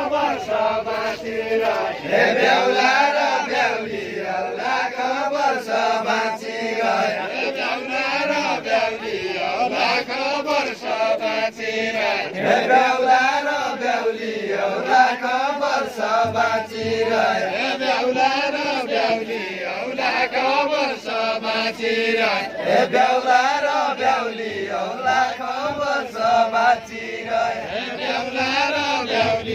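A group of men singing a Deuda, the folk song of far-western Nepal, together in a chant-like melody of repeating rising and falling phrases.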